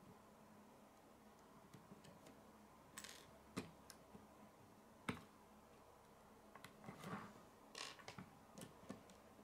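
Plastic K'nex pieces clicking and snapping as they are handled and fitted together, with brief rustles of handling: a scattered run of short clicks starting about three seconds in, the sharpest about five seconds in.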